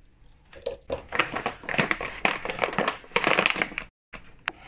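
Brown paper bag crinkling and rustling in irregular bursts as it is gripped and shea butter is scooped out of it by hand.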